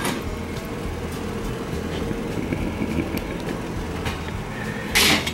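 Vehicle engine idling steadily with a low, even hum. A brief sharp noise cuts in near the end.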